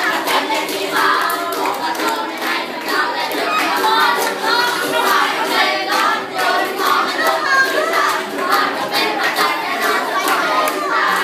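A group of young voices singing a song together to ukulele strumming, with hand clapping keeping the beat.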